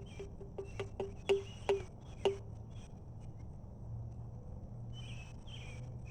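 Last drops of rainwater dripping from a rain gauge into its measuring tube: about eight short plinks in the first two seconds or so. Insects chirp in the background.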